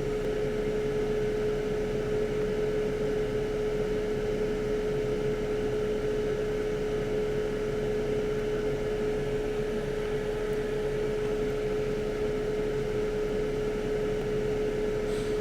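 Steady whir of a small electric fan with a constant hum, unchanging throughout.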